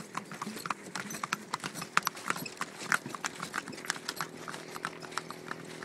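Hooves of a harnessed cart horse clip-clopping on an asphalt road, several sharp, uneven strikes a second.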